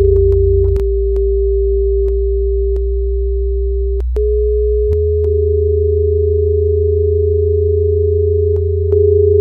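Electronic drone music: a steady pure sine tone held over a low bass drone that shifts pitch twice, with sparse sharp clicks and a brief glitch in the tone about four seconds in.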